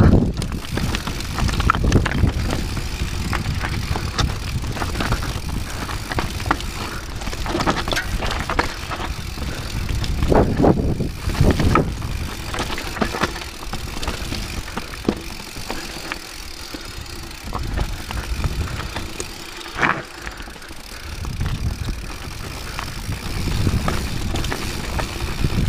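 Rocky Mountain 790 MSL mountain bike riding down a rocky, loose trail: tyres crunching over stones and gravel, with frequent short knocks and rattles from the bike over a steady low rumble.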